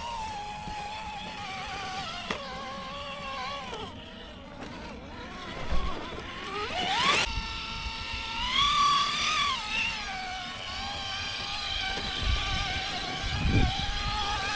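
Whine of a radio-controlled rock crawler's electric motor and gears, rising and falling in pitch as the throttle is worked, with a quick rising whine about seven seconds in.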